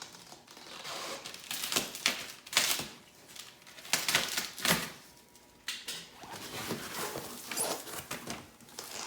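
Packaging being handled and opened: irregular rustling, crinkling and tearing with scattered clicks and knocks, as a new exhaust part is unpacked.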